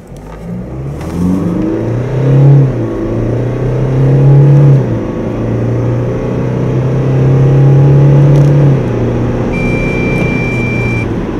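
Kia Sportage's 2.0 CRDi four-cylinder turbodiesel under full-throttle acceleration from standstill, heard from inside the cabin: the engine note climbs and drops back at each of three automatic-gearbox upshifts, about 2.5, 5 and 9 seconds in. A steady high electronic beep sounds for about a second and a half near the end.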